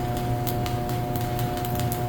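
Stick-welding arc from an inverter welder turned down to about 110 amps: a dense, irregular crackle over a steady hum.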